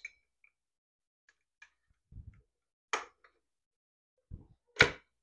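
Sparse small clicks and taps of a hex key and metal parts as the blade bolt of a Bauer compact circular saw is tightened after a blade change. Two sharper clicks come about three and five seconds in, with a couple of soft low thuds among them.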